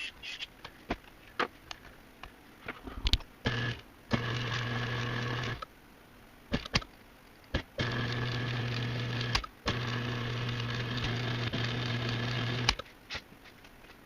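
Ilco 017 key duplicator's electric motor switched on and off several times, running with a steady hum for one to three seconds each time. Sharp clicks and knocks come between the runs.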